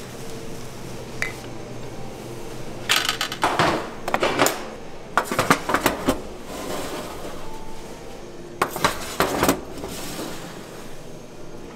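Metal bakeware and tools clattering and clinking as they are handled, in three short flurries of knocks over a steady low hum.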